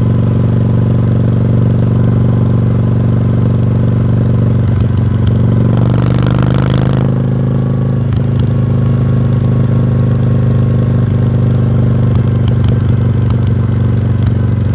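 1986 Yamaha Virago's V-twin engine running steadily through its exhaust. Its note shifts between about five and eight seconds in, with a brief hiss near the middle.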